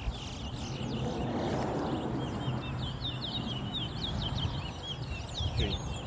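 Caged towa-towa (chestnut-bellied seed finch) singing, a rapid string of short, high chirping notes, over steady outdoor background noise.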